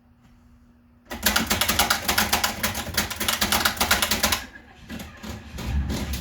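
1920s Bing No.2 portable typewriter being typed on: a fast run of key strikes lasting about three seconds, starting about a second in, then a few scattered clicks.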